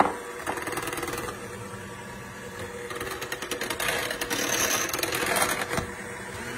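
Electric hand mixer running steadily on low, its beaters whirring through a thin lemon icebox pie filling of condensed milk, egg yolks and lemon juice in a glass bowl. A single sharp clink comes right at the start.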